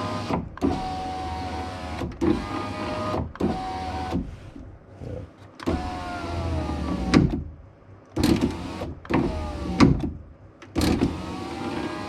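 Saab 9-3's rear door power window motor and regulator driving the glass up and down in several short runs, each starting and stopping, with a knock as the glass reaches a stop. There is a gritty note in the run, which the mechanic puts down to leftover bits of broken glass inside the door.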